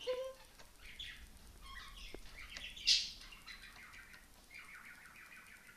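A pet bird chirping and twittering in quick short notes, with a louder sharp sound about three seconds in.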